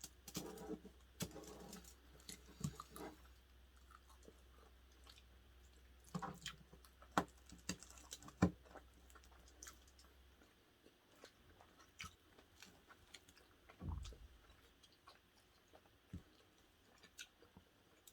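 Faint chewing and eating sounds, with scattered small clicks and taps. A steady low hum stops about ten seconds in, and there is a soft low thump near the end.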